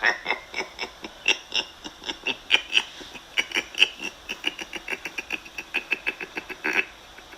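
Demonic laughter sound effect: a long rapid run of short "ha" pulses, several a second, that stops shortly before the end.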